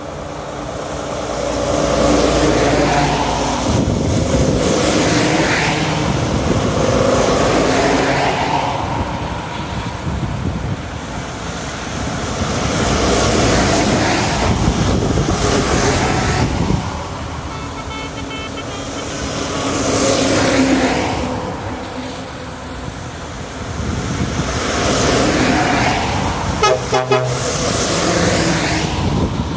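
A convoy of lorries driving past one after another, each rising and fading as it goes by, with tyres hissing on the wet road. A horn sounds about two-thirds of the way through and again, in short toots, near the end.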